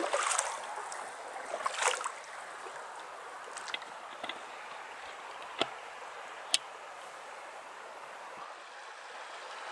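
Water splashing and trickling around a paddled PVC inflatable boat on a river, over a steady hiss of running water, with a few sharp clicks in the middle.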